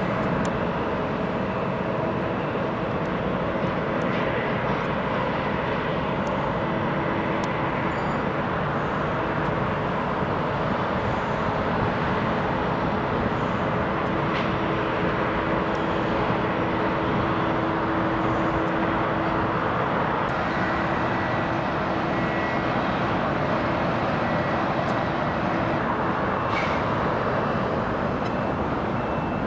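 Jet engines of a twin rear-engined business jet taxiing: a steady rushing noise with a faint steady whine over it.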